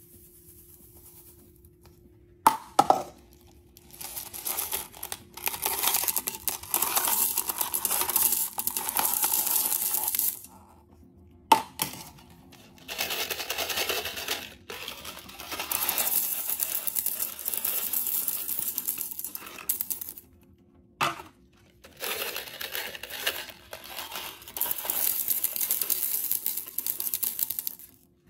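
Small hard candies pouring out of cardboard boxes and rattling down onto a heap of sweets and coffee grounds in a toilet bowl, in three long pours. Each pour follows a short sharp sound.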